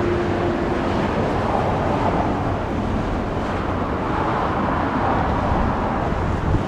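Road traffic noise from cars passing near a railroad crossing, with wind rumbling on the microphone. A faint steady tone fades out about a second in.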